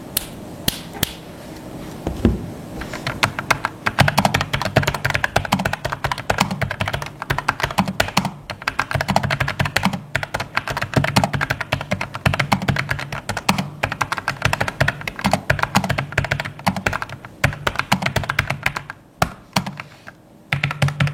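Rapid typing on a Logitech MX Mechanical keyboard with brown (tactile, quiet) switches: a few separate keystrokes, then a dense run of key clicks with a brief pause near the end.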